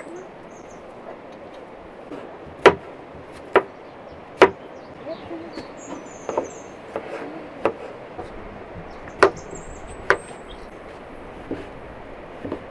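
Kitchen knife slicing cucumber on a wooden cutting board: sharp knocks of the blade meeting the board, coming at an uneven pace, some hard and some light.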